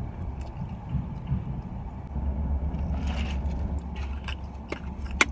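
Low, steady rumble of a car heard from inside the cabin, growing louder about two seconds in, with light handling ticks and one sharp click near the end.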